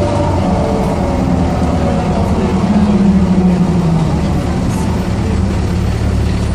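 Mercedes-Benz O405 city bus heard from inside the saloon while moving: a steady diesel engine drone with the whine of its ZF automatic gearbox, which is loudest and falls slightly in pitch about three to four seconds in.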